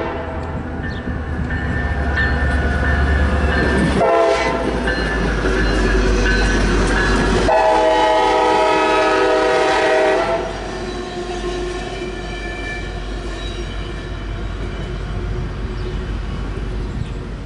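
CSX diesel locomotive sounding its air horn in long blasts through the grade crossing, the horn chord dropping in pitch about seven and a half seconds in and stopping about ten seconds in. The locomotive's engine and the passing train cars carry on underneath with a low steady rumble.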